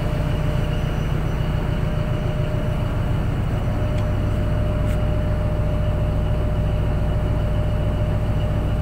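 Tugboat's diesel engine running steadily under way: a constant low rumble with a thin steady whine above it.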